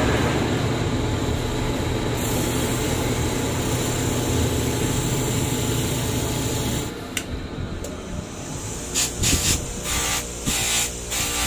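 Electric sharpening wheel running with a steady hum while a scissor blade is held against it, making a steady hiss. The wheel stops about seven seconds in, and from about nine seconds the blade is pushed against a spinning bench-grinder wheel in short strokes, about two a second.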